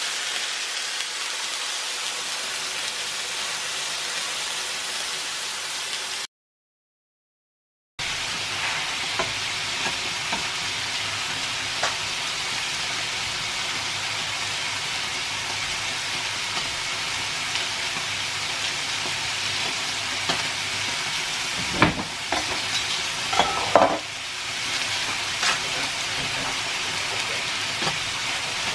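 Steaks sizzling on a hot electric contact grill plate, a steady frying hiss. The sound drops out completely for about two seconds a quarter of the way in, and a few sharp clicks and knocks come later on.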